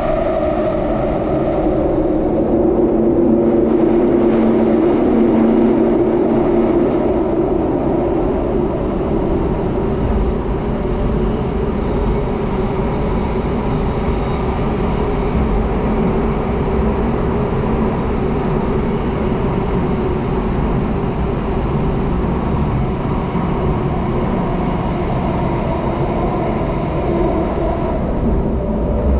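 Singapore MRT Downtown Line train heard from inside the carriage while running through the tunnel between stations: a steady loud rumble of wheels on rail and car body, with a humming tone that is a little louder for the first several seconds.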